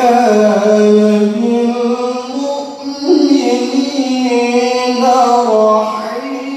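A male qari reciting the Qur'an in the melodic tilawah style. He holds long notes on a steady pitch with ornamented turns, and starts a new phrase about three seconds in.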